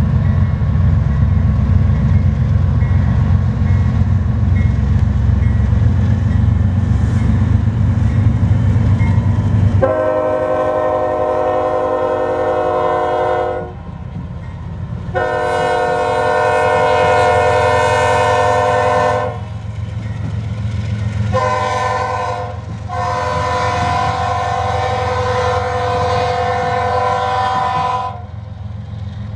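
Diesel freight locomotive's air horn sounding the grade-crossing signal: two long blasts, a short one, then a final long blast as the train reaches the crossing. Before the horn, a loud low rumble.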